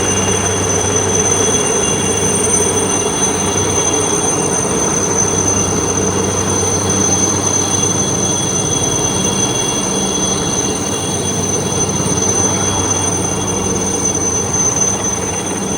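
Steady loud machine noise with several constant high-pitched whines over a low rumble, unchanging throughout.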